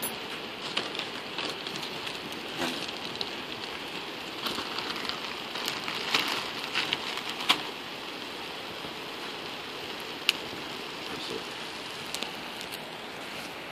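Fatwood shavings burning fast in a stainless-steel IKEA hobo stove: a steady hissing rush with scattered crackles and pops. A plastic zip bag of shavings rustles briefly around the middle.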